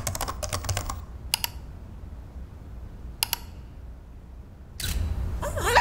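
Computer keyboard typing in a quick run of keystrokes, then two single clicks a couple of seconds apart. Near the end a puppy whimpers with short gliding cries.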